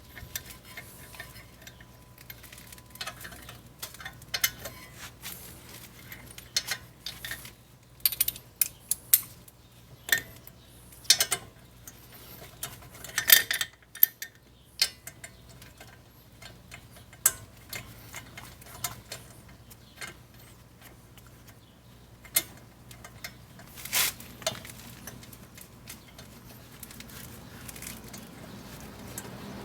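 Irregular metal clicks and clinks of hand tools working the T45 Torx bolts on a BMW E60's front brake caliper, with the sharpest clanks about ten, thirteen and twenty-four seconds in.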